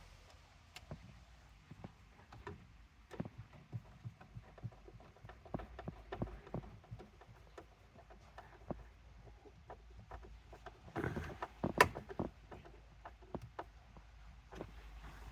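Scattered small clicks and taps of plastic trim and parts being handled and fitted in a car's centre console, with a louder burst of clatter and one sharp click about eleven to twelve seconds in.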